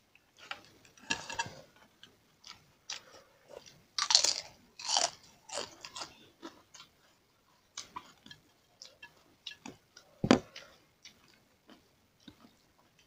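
Eating sounds from rice and daal eaten by hand: chewing, and fingers squishing rice and scraping across plates, in short irregular bursts. A single sharp knock about ten seconds in.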